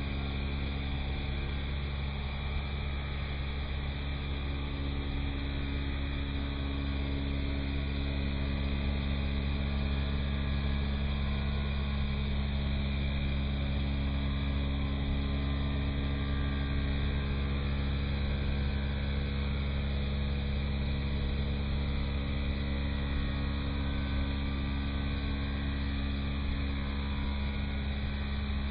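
CNC router spindle with a 6 mm carbide cutter cutting an acacia board, slowed down to a steady low drone with several held tones and no change in pitch.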